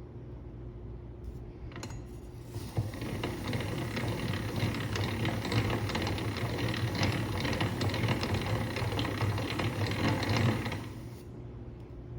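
Alexanderwerk rotary knife cleaner turned by its hand crank, its gears clicking and rattling for about eight seconds before stopping.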